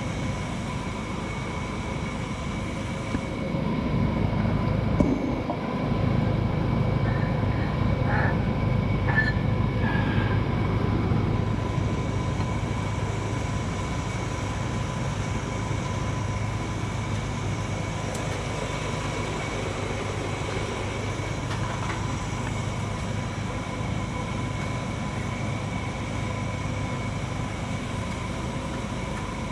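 A steady low mechanical rumble with a faint high whine. It grows louder about four seconds in and eases off again after several seconds.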